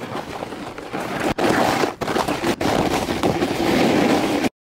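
Snowboard sliding and scraping over hard snow, a rough crackling noise in short pieces with sudden breaks between them, cutting off sharply near the end.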